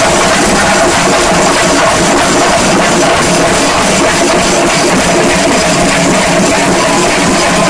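Massed chenda drums of two shinkari melam troupes played together in a competitive face-off: a dense, fast, loud, unbroken stream of drumstick strikes.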